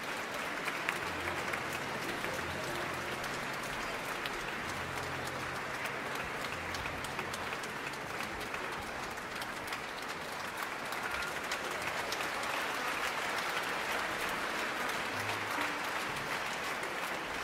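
Large concert-hall audience applauding steadily, the clapping growing a little louder in the second half.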